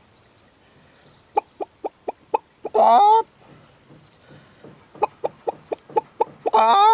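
Brown hens cackling: a run of short clucks ending in a longer, louder squawk that rises in pitch, heard twice.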